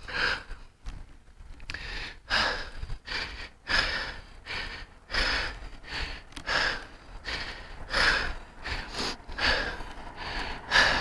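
A cyclist panting hard, with loud, rhythmic breaths about once a second from the effort of pedalling uphill.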